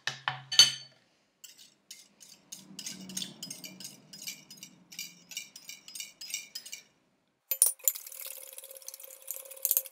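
A metal spoon stirring cocoa powder into almond milk in a glass bowl, clinking against the glass about four times a second. Near the end the stirring gives way to a faster, denser scraping.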